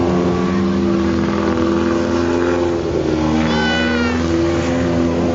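Car engines running steadily at idle, their hum shifting in pitch now and then. A brief high-pitched call cuts through about three and a half seconds in.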